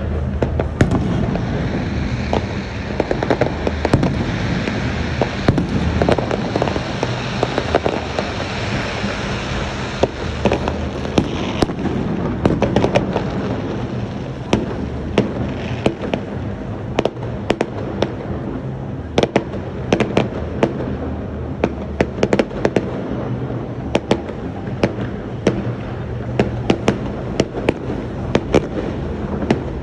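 Fireworks going off in rapid succession: a dense, continuous run of bangs and crackling, with sharp cracks coming thick and fast through the second half over a steady low drone.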